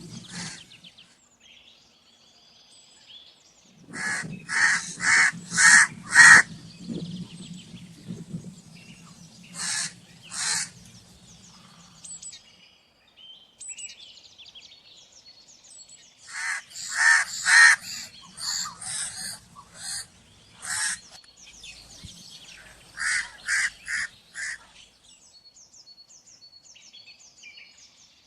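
Crows cawing in quick runs of short calls: a run of four, then a pair, then a longer run of about ten, then four more, with faint chirping from smaller birds in the gaps.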